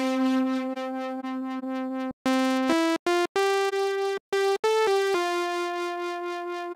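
Korg Polysix software synthesizer (Reason Rack Extension) playing a preset as a single-note line with a bright tone: a long held note, a few short notes, then another long held note from about five seconds in.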